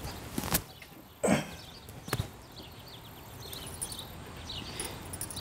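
Footsteps and a rustling thud on dry, leaf-strewn dirt as a man crouches down and sits: a couple of sharp clicks, with the loudest thud about a second in. After that, birds chirp in short, quick calls.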